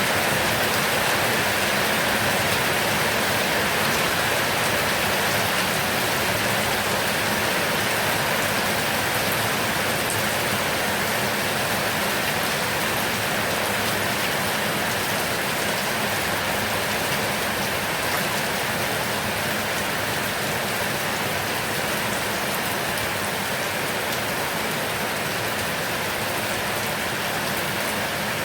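Heavy rain falling steadily, a dense, even hiss of drops with no break.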